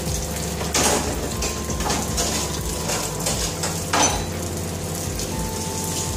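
Cod fillet frying in oil in a nonstick frying pan: a continuous sizzling crackle, with sharper spits about a second in and again about four seconds in.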